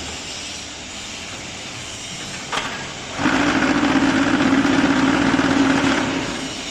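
Concrete block-making machine running, with a short click about two and a half seconds in, then a loud steady buzz for about three seconds that dies away.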